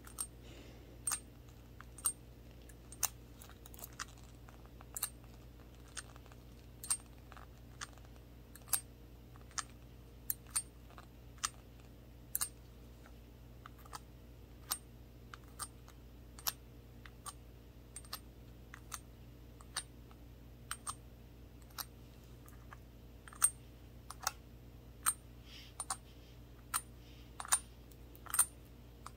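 A small glass shot glass with a handle being tapped with toothpick gloves: sharp, unevenly spaced taps, roughly one or two a second, each with a brief high glassy ring. A faint steady hum lies underneath.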